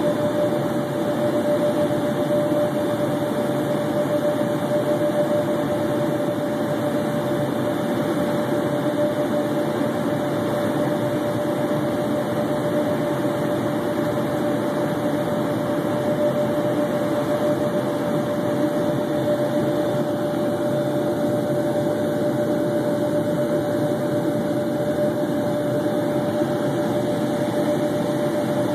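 Steady in-flight cabin noise of an Embraer Phenom 100 twin-turbofan light jet: a constant rush of airflow and engine noise with a steady whine held at one pitch.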